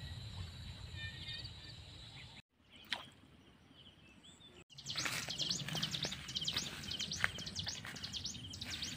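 Birds chirping over faint outdoor background noise. The sound drops out almost completely for about two seconds a quarter of the way in, then returns with a busy run of quick high chirps, several a second, and a few soft clicks.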